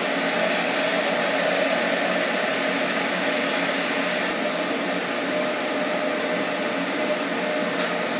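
A fan running steadily: an even whirring hum with a couple of steady tones in it.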